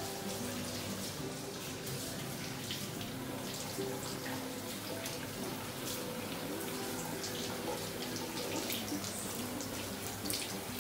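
Water running from a washbasin tap into the sink, a steady hiss.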